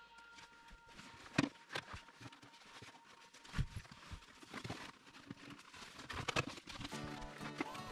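Irregular clicks and knocks of plastic dashboard parts in a VW Golf Mk2 being handled and worked loose, with a few louder knocks among softer rattling.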